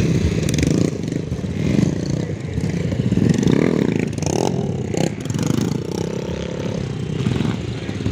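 Several small street motorcycles revving hard, their engine pitch rising and falling again and again as the riders throttle up to lift the front wheel into wheelies.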